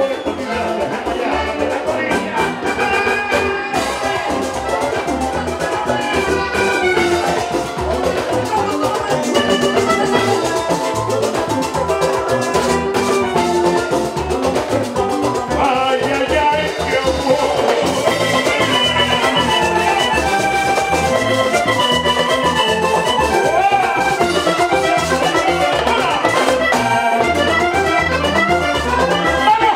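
Live vallenato music: a diatonic button accordion carries the melody over a caja drum, electric bass and guitar, with a steady beat. About halfway through the accordion line gets brighter and busier.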